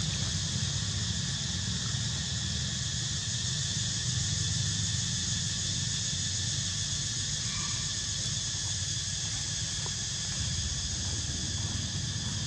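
Steady outdoor background: a continuous high hiss over a low rumble. A brief faint squeak comes about seven and a half seconds in.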